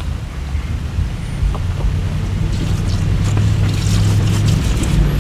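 Range Rover Sport L494 engine running under load on a loose gravel slope, a steady low drone, with crackling of stones under the tyres from about halfway through.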